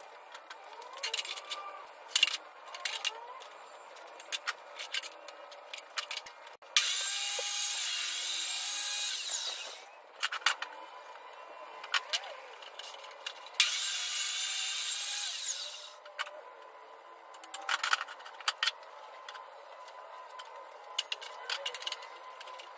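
Black walnut boards being handled and set up on a workbench and table saw: scattered wooden knocks and clatter, with two spells of steady rasping noise about three seconds long, one around a third of the way in and one past the middle.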